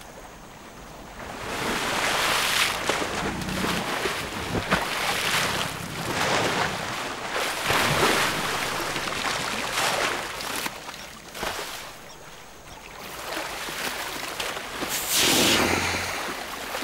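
Water splashing and sloshing as African elephants, a newborn calf among them, wade through a shallow waterhole. The splashing comes in surges every few seconds, with the loudest near the end.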